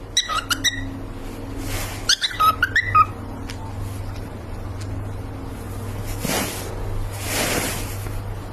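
Pet cockatiel chirping: a quick run of short chirps, then a second run about two seconds in. Later come a couple of longer rustling, hissy noises over a steady low hum.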